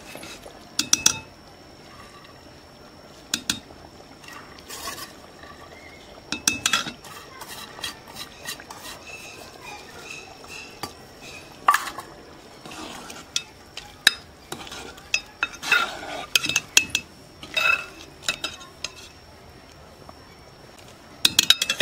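A steel ladle stirring a thin vegetable curry in an aluminium cooking pot, with scattered sharp clinks and scrapes of metal against the pot's sides and rim.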